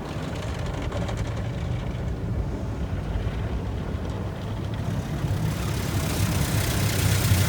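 Tunnel car wash heard from inside the car: a steady low rumble, joined over the last two seconds by a growing hiss of water spray on the car as the high-pressure rinse starts.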